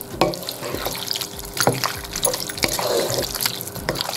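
Wooden spoon stirring chunks of chicken and bottle gourd in a wet masala in a metal pot: irregular wet squelches and sloshing, with a knock of the spoon against the pot every second or so.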